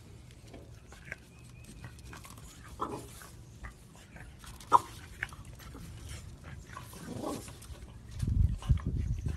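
A French bulldog and a piglet nosing each other: faint snuffling with a few short high squeaks, the sharpest about halfway through, then a run of loud, low, quick breaths from the French bulldog near the end.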